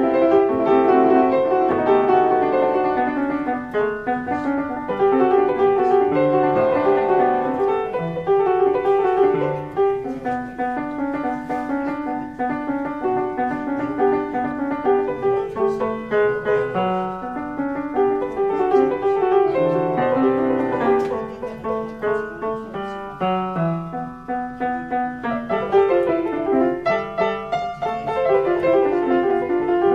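A 150-year-old upright piano, an 1872 German Rittmüller, being played: a continuous piece of chords and moving melody notes.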